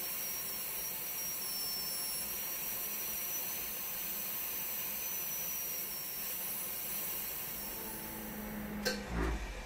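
Air-driven high-speed dental drill handpiece running with a steady high whine and hiss as it pierces the thin maple wall of a vase. Near the end there is a click and a low thump, and the whine stops.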